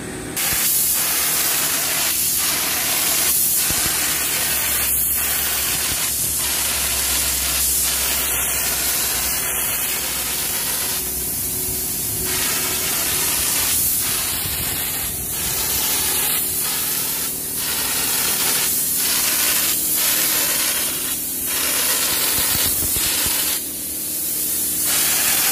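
Compressed-air hopper spray gun spraying textured paint onto a wall: a loud, steady hiss of air and spray, dipping briefly every second or so as the spraying falters, and easing off for a moment near the middle and again near the end.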